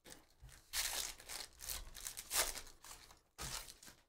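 Foil wrapper of a Donruss basketball card pack being torn open and crinkled, in a few short bursts of rustling.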